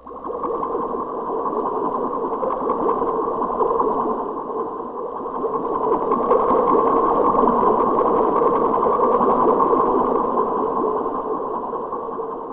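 A synthesized sound effect from a TJ Media WOW-7800 karaoke machine: a dense, crackling noise that starts suddenly, runs steadily with a slight swell, and fades out near the end.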